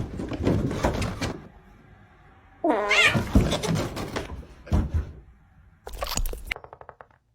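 Fart sound effects played in short buzzing bursts, with a cat meowing among them.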